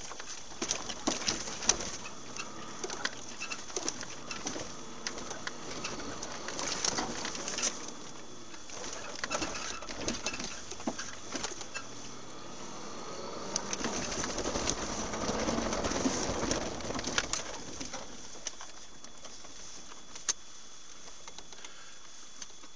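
Irregular knocks and rattles inside a moving vehicle's cabin, picked up by a dashcam, with a faint steady high whine throughout. The knocks come thickest at the start and again over several seconds past the middle.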